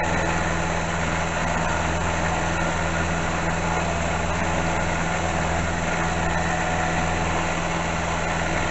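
Metalworking machine tool running steadily under power feed, taking a light cut on metal: an even motor hum and gear drone with no breaks.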